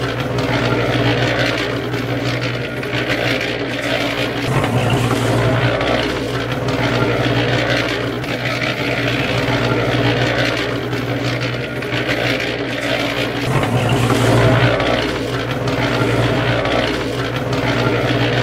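Small electric motor of a miniature cement mixer running, turning its drum of wet cement, with a steady hum that swells a little every few seconds.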